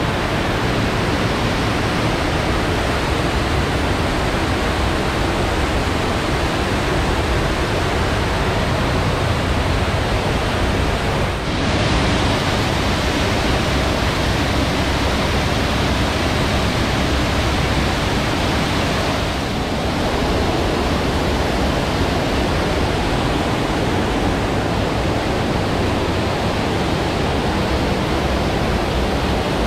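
Indoor waterfall: a wall of water falling in a sheet and splashing at its base, a steady rush of falling water that dips briefly twice.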